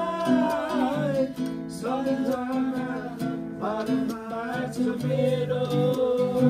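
Music: a Nepali song, a singing voice with gliding, held notes over instrumental accompaniment.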